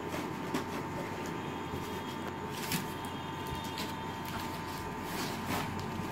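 Hands handling a small cardboard crayon box and sliding it open, with scattered light scrapes and clicks over a steady faint hum.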